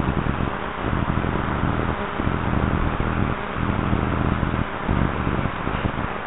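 Wind buffeting a small camera microphone in irregular low gusts, over a steady hiss.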